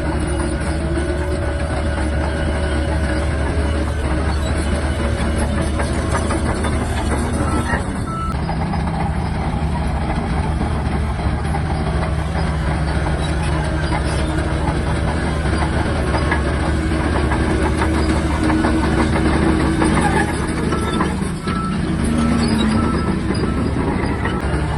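Crawler bulldozer's diesel engine running steadily under load, with the clatter of its steel tracks.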